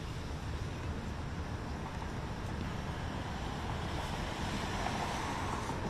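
Wind rumbling on the microphone while a vehicle passes by, its noise swelling over the last couple of seconds.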